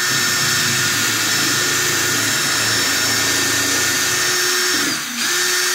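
Cordless hammer drill running at speed, boring a hole through a fascia board with a steady whine. Just before five seconds in it briefly slows and drops in pitch, then speeds up again.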